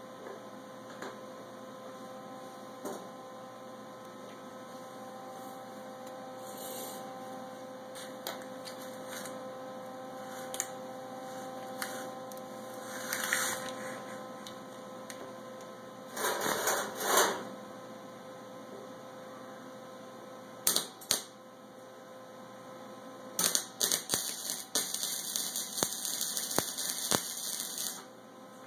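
Steady electrical hum with scattered clicks and knocks as spring clamps and a MIG welding torch are handled on a sheet-metal deck lid. There is a louder rattle about two-thirds of the way through, and several seconds of dense crackling near the end.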